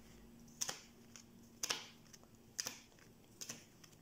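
Neapolitan playing cards being dealt one at a time from the deck onto the table: four crisp card snaps about a second apart.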